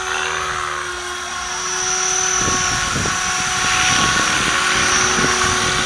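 KDS 550 radio-controlled helicopter flying close by, a steady motor and rotor whine with rotor blade chop. It grows louder about two seconds in as the helicopter comes near overhead.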